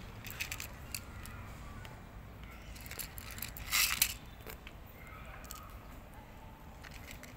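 A cat crunching dry kibble from a plastic plate, with irregular small clicks of pellets against the plate and a louder rattle of clustered clicks about halfway through.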